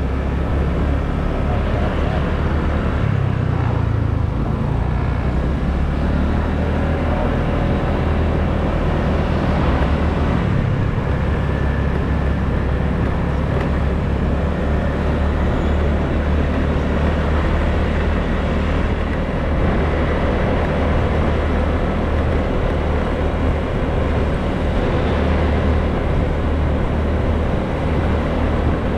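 Motor scooter being ridden at a steady cruising speed: its engine and the road noise run evenly, with no sudden changes.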